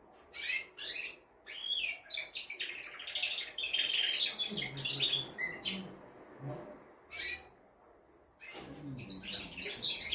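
Male domestic canary singing: fast chirps and rolling trills in rapid phrases, broken by short pauses, with a longer break about three-quarters of the way through before the song picks up again.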